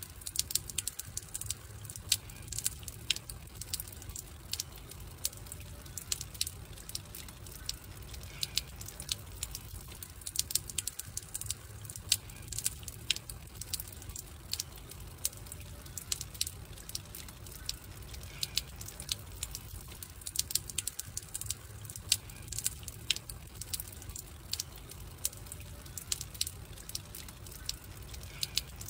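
Wood fire crackling: many sharp, irregular pops and snaps over a low, steady rumble.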